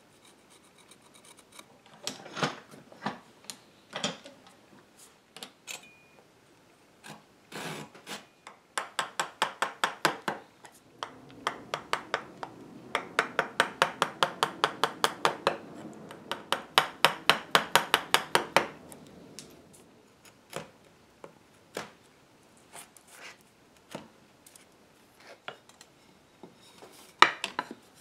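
A hand tool scrapes wood from the sides of a mahogany chair tenon to narrow it for its mortise, in runs of quick, even strokes at about four or five a second through the middle stretch. Scattered knocks and taps of handling come before and after.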